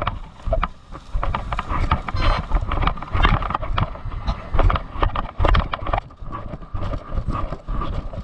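Footsteps of people hurrying on foot through a dry wheat field: irregular thuds and crunches, several to a second, with thumps of wind on the microphone.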